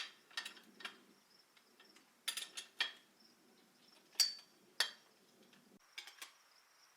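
Metal bike parts and tools clinking and knocking as they are handled: a dozen or so sharp separate clinks in small clusters, with a pause of about a second between them.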